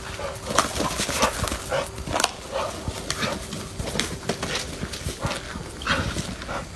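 A dog scuffling and thrashing on gravel and grass as it attacks a snake: a rapid, irregular run of short scrapes, thuds and snaps.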